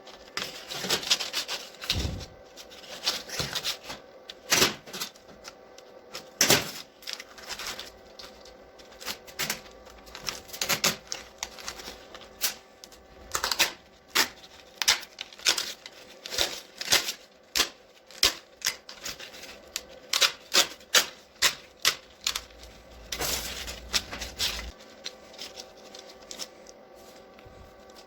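Irregular sharp clicks and knocks from hand work on the parts of a home-made sanding machine, quickening to about two a second in the middle, over a faint steady hum.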